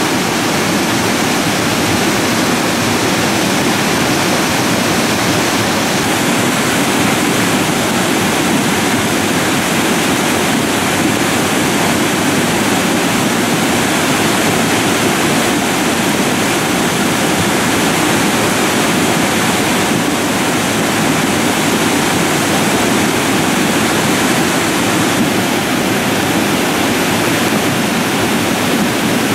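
Debris flow surging down a channel in loose moraine: a steady, loud rush of muddy water carrying gravel and boulders.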